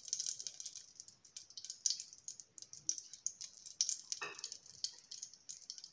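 Ghee crackling faintly in a hot aluminium pressure cooker as it melts, a scatter of small irregular pops. A metal spoon scrapes briefly across the base about four seconds in.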